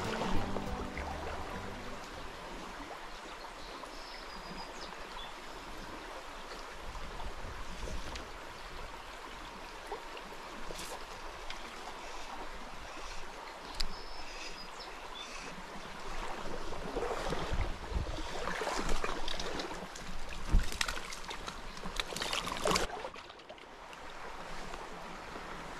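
Creek water running steadily over the streambed. Over the last third, louder irregular knocks and rustles come and go.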